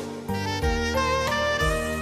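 Instrumental background music: a melody of held, wavering notes over a bass line and a steady beat.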